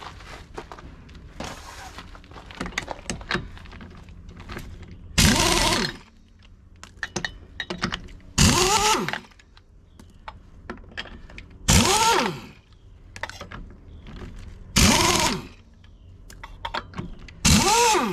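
Impact wrench taking the lug nuts off a travel-trailer wheel: five short runs about three seconds apart, each a whine that rises and falls in pitch. Small clicks of the socket and nuts come between them.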